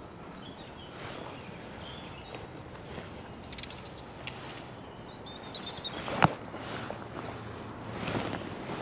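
Steady rush of a flooded river, with a blackbird singing a short high phrase a few seconds in. A single sharp knock about six seconds in is the loudest sound.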